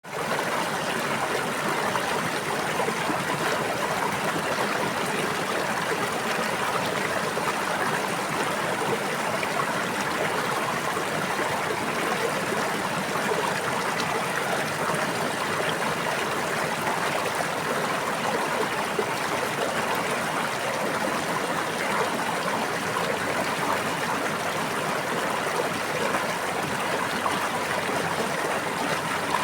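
A stream of water running steadily, an even, unbroken rush and babble.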